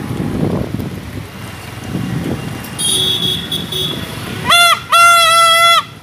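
Home-made bicycle air horn blown by mouth through a tube: a short honk about four and a half seconds in, then a longer steady honk lasting about a second.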